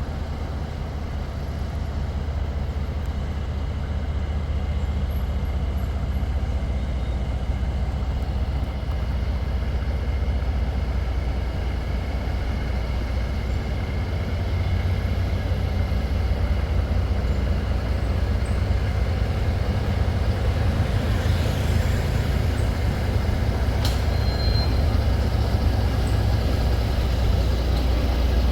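Diesel locomotive running with a steady low engine rumble that grows slowly louder, with a brief high squeak about three-quarters of the way through.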